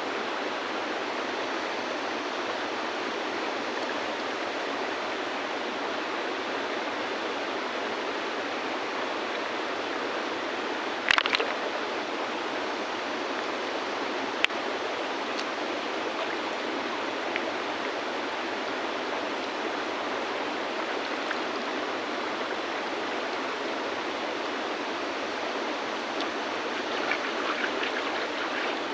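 River water flowing steadily over stones. Stones knock sharply together several times about eleven seconds in and once a few seconds later, with a patter of small stone clicks near the end.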